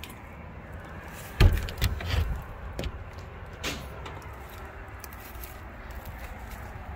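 A panel door handled and shut with a heavy thud about a second and a half in, followed by a few rattling knocks and a couple of clicks, over a steady low rumble.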